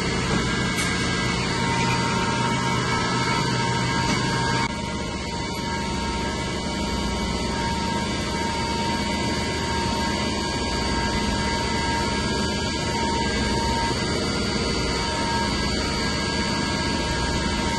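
Steady drone of running chiller-plant machinery, pumps and motors, with a constant hum and a high whine over it.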